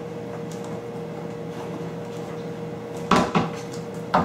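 Puppies bumping into their play toys: a quick pair of sharp knocks and clatter about three seconds in and another knock near the end, over a steady hum.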